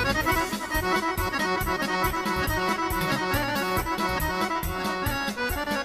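Instrumental break of a Balkan folk song, an accordion leading over a steady, even beat.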